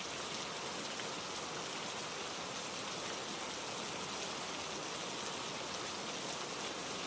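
Steady rainfall, an even hiss of rain on a surface with no thunder or other events.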